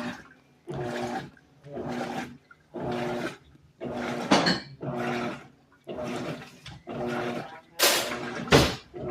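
Electrolux 12 kg washing machine agitating: the motor hums and the water swishes in a stroke about once a second as the agitator drives back and forth. The machine is washing normally again, its burned-out water pump replaced.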